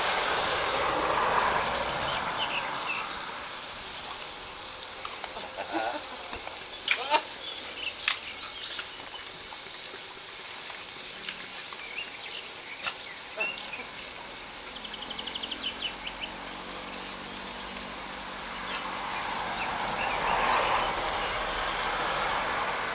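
Water from a garden lawn sprinkler spraying and splashing on concrete while a dog snaps at the spray, with a few sharp clicks in the middle and a brief rapid ticking trill about two-thirds of the way in.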